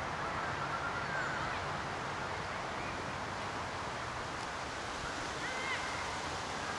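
Steady outdoor noise of wind on the microphone across an open football pitch, with a few faint short calls in the distance.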